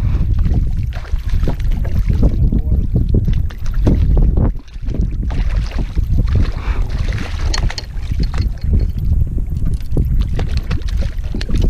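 Wind buffeting the microphone in a loud, uneven rumble, with splashing from a hooked small barracuda thrashing at the water's surface as it is reeled in.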